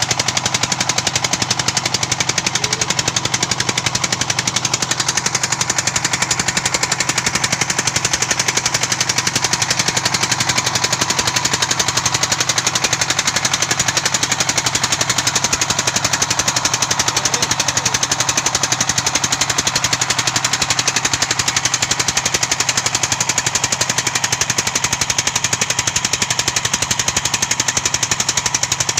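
Unmuffled mining engine (the '48' engine) running steadily at speed, a rapid, even chatter of firing pulses over a steady hum.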